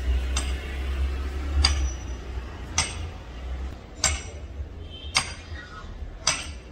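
Sledgehammers striking a metal tent stake to drive it into the ground: six sharp clanging strikes with a short ring after each, about one strike a second in a steady rhythm.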